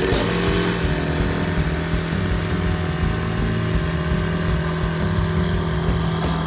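Circular saw running steadily at full speed, with background music under it.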